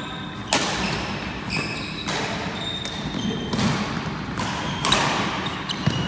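Badminton rally: rackets hitting the shuttlecock several times, sharp smacks a second or two apart. Short high squeaks of shoes on the wooden court floor come between the hits.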